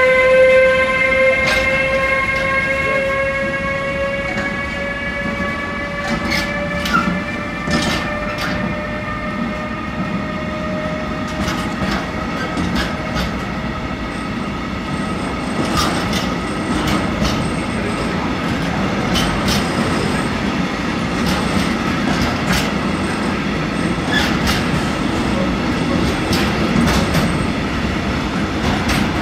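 Electric train moving through the station, its traction motors whining at a pitch that rises slowly as it gathers speed over the first half, while the whine gradually fades. Irregular clacks of the wheels over rail joints and points run throughout.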